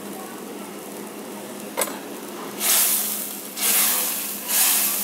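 Curry gravy sizzling in an iron kadhai, with a single click about two seconds in. Then a wooden spatula stirs it, and each stroke brings a loud swish of sizzle, about one a second.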